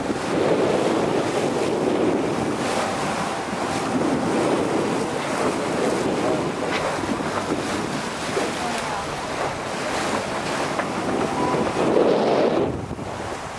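Wind buffeting the microphone over the rush and slap of water along the hull of a sailing yacht under way in a choppy sea. It swells and eases every few seconds and drops away about a second before the end.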